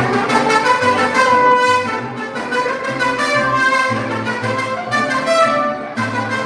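Mariachi music: violins and trumpets playing over a bass line of regular low notes.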